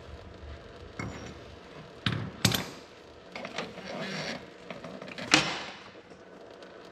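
Metal clinks and clatter of a wrench, bracket bolt and steel hydraulic line being handled as the line is worked free: a sharp clink about a second in, two close together about two seconds in, scraping and rustling after, and the loudest clink near the end.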